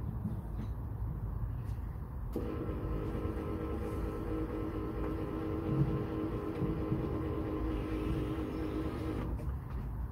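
Replacement electric car aerial's motor whining as it drives the telescopic mast up, starting about two seconds in and cutting off near the end; a bit noisy. A low rumble sits underneath throughout.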